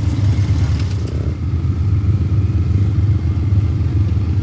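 Quad bike (ATV) engine running at low revs, a steady low rumble with no rise or fall.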